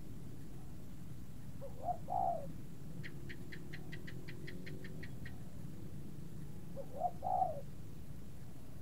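A bird calls twice, about five seconds apart, each call a short note followed by a longer one. Between the calls comes a quick run of about a dozen high ticks, over a steady low hum.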